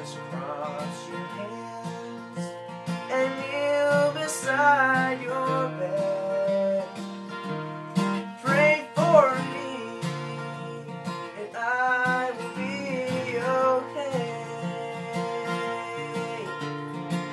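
Acoustic guitar played steadily under a man's singing voice, which comes in several long sung phrases.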